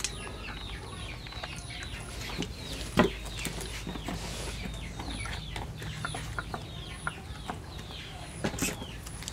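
Bird calls: many short, falling chirps in quick succession, with one sharp knock about three seconds in.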